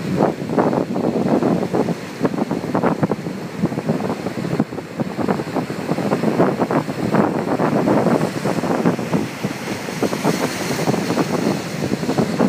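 Wind buffeting the microphone in irregular gusts over the rush of breaking ocean surf.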